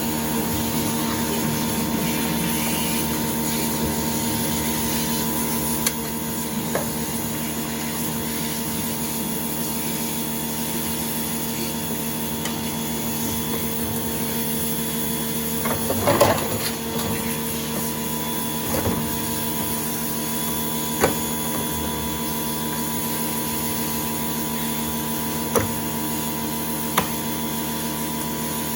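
Steady background hum with a few short clicks and knocks of tools and parts being handled while a washing machine is taken apart, the loudest a brief clatter about halfway through.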